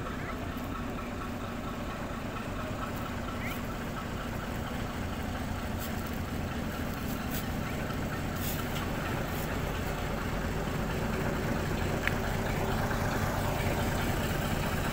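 Small diesel shunting locomotive's engine running at low revs as it moves slowly along the track, growing gradually louder as it approaches.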